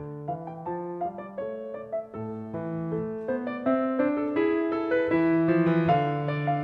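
Background instrumental music: a melody of short notes over lower held notes.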